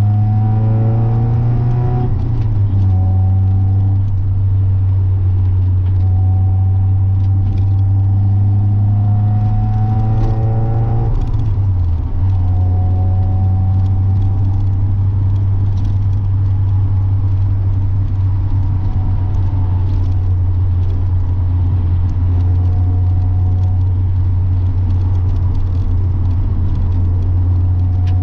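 NA Mazda Miata's inline-four engine and exhaust droning steadily while driving. Twice the revs climb in a rising note and then drop away at a gear change, about two seconds in and again around eleven seconds.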